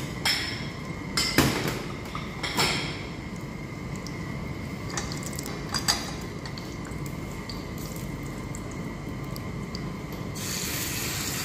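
Kitchen clatter: several sharp knocks and clinks of utensils and dishes, most of them in the first six seconds, over a steady hiss. Near the end a louder, brighter hiss starts and keeps going.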